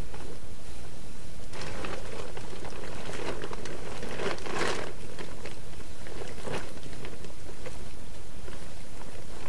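Crinkling rustles of a foil emergency blanket as the person wearing it moves about. There are a few separate bursts, the loudest about four and a half seconds in, over steady low background noise.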